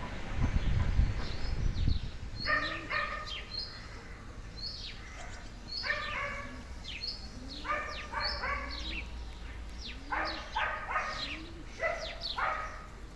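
Repeated animal calls in short groups of two or three, starting about two and a half seconds in, after a low rumble in the first two seconds.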